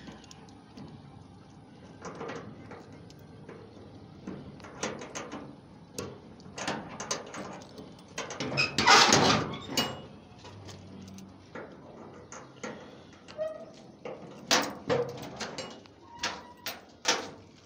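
A padlock being unlocked and the sliding barrel bolt of a rusty steel door being drawn back, then the door opened: a string of metal clicks, rattles and clanks, loudest in a cluster about halfway through.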